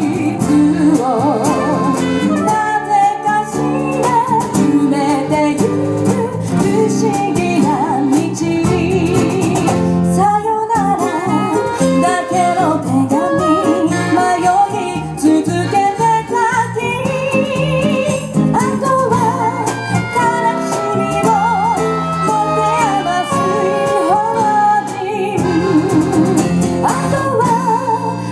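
Live small-band music: a woman singing over accordion, electric bass, acoustic guitar and saxophone.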